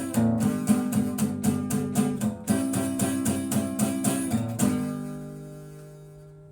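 Guitar strummed in quick, even strokes, ending about four and a half seconds in on a final chord that rings out and fades away.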